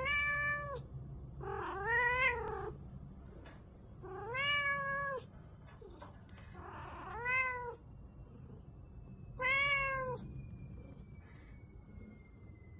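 Seal-point Siamese cat meowing loudly and repeatedly, five drawn-out calls about two seconds apart, each rising then falling slightly in pitch.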